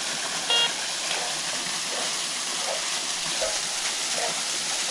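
Steady rush of creek water, with one short beep from a metal detector about half a second in.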